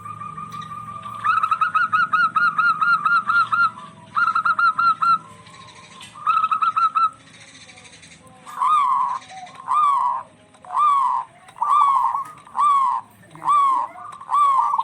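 Zebra doves (perkutut) calling back and forth: first several bursts of fast, rattling repeated notes, then about seven separate cooing notes, each rising and falling in pitch, spaced a little under a second apart.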